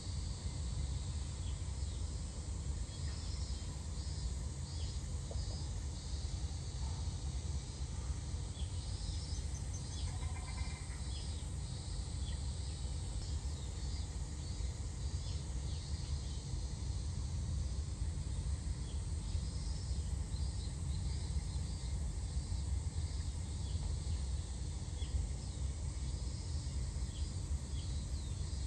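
Outdoor ambience: a steady low rumble with faint, high, repeated chirping throughout, and one brief higher call about ten seconds in.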